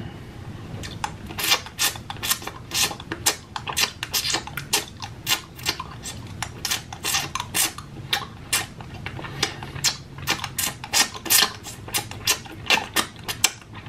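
Close-miked mouth sounds of sucking on a small hard candy cane: irregular wet smacks and clicks of lips and tongue, several a second.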